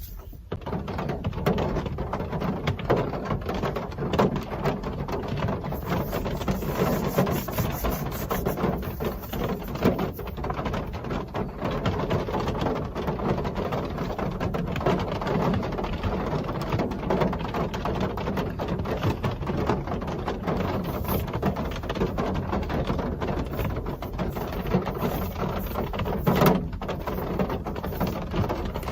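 Steady real rainfall, a dense patter with many individual drops ticking, coming in about half a second in. One louder knock is heard near the end.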